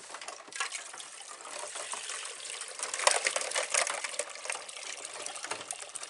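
Ice cubes knocking and clinking around in sloshing water, a dense run of clicks over a watery wash that gets busiest about three seconds in.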